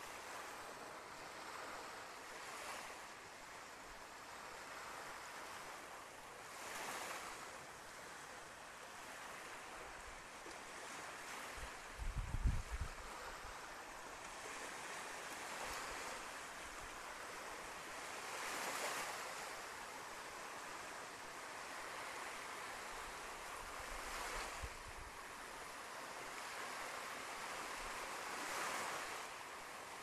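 Gentle sea waves washing onto a sandy beach: a steady hiss of surf that swells softly every four to five seconds. About twelve seconds in, a brief low rumble of wind on the microphone.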